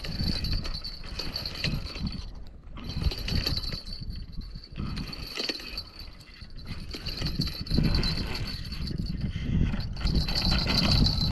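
Insects, such as crickets, trilling steadily on one high note, over a low, uneven rumble that rises and falls.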